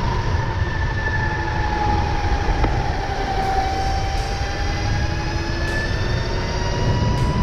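Electric drive whine from a Razor SX500 mini bike converted to a 72 V E&C EC4P brushless motor, cruising at about 30–35 mph. The thin whine dips a little in pitch about halfway through and rises again near the end. Under it is a heavy wind rumble on the handlebar-mounted microphone.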